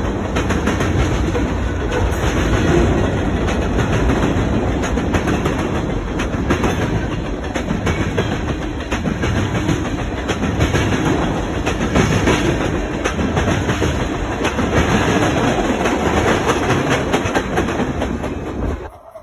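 Norfolk Southern manifest freight train's tank cars and covered hoppers rolling past close by: a steady loud rumble of steel wheels on rail with repeated clicks from the wheels. The sound drops away suddenly near the end as the last car passes.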